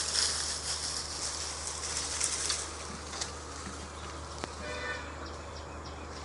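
Outdoor background noise: a steady high hiss, louder in the first two and a half seconds, over a low steady hum, with a few faint clicks.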